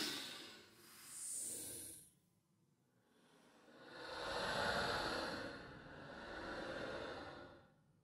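Horror sound effect of ghostly breathy sighing: a short breath about a second in, then after a pause a long drawn-out sigh that swells twice before fading.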